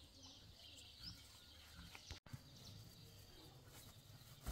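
Near silence: faint outdoor background noise with a few soft ticks.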